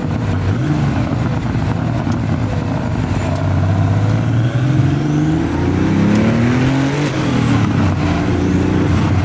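Porsche 930 Turbo's air-cooled turbocharged flat-six accelerating, its engine note rising in pitch with a change about seven seconds in, and a faint high whistle climbing along with it.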